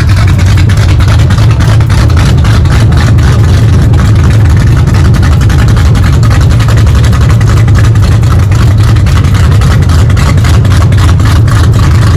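Car engine running loudly close by, very near full scale throughout, with a dense, uneven crackle over a steady low rumble.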